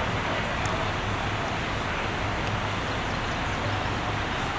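Steady outdoor rumble of road traffic with a low, even engine hum underneath.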